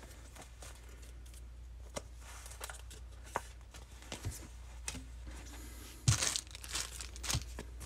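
Trading cards being slid into soft plastic penny sleeves and rigid plastic top loaders: plastic crinkling and rustling with small clicks, loudest about six seconds in.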